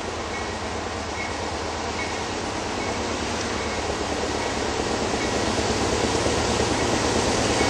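Two GE AC4400CW diesel-electric locomotives running under power up a grade, a steady low diesel drone that grows steadily louder as they approach.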